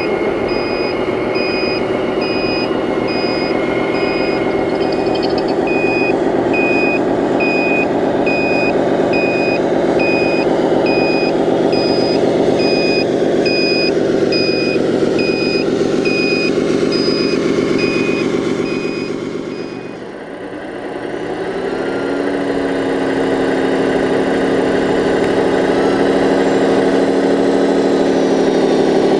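RC Scania 8x8 dump truck's electronic sound module playing a diesel engine running, with a reversing beeper sounding about once a second. About two-thirds through the beeping stops and a lower engine note takes over, rising in pitch near the end.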